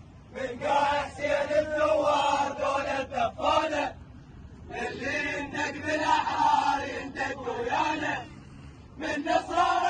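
A group of men chanting an Iraqi protest song in unison, in phrases of about three seconds with short breaks between them.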